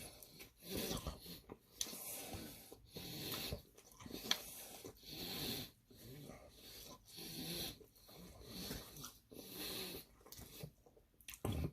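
Close-up mouth sounds of someone eating saucy chicken wings: wet chewing and breathing through the nose in short bursts about a second apart.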